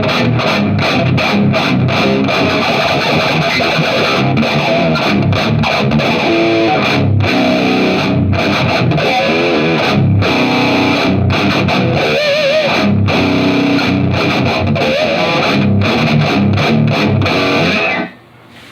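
Electric guitar with distortion playing riffs, with a few wavering held notes along the way; the playing cuts off suddenly near the end.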